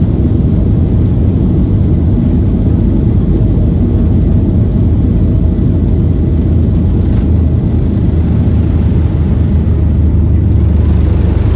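Boeing 737-800 on its takeoff roll, heard from inside the cabin: its CFM56 engines at takeoff thrust with a loud, steady low rumble.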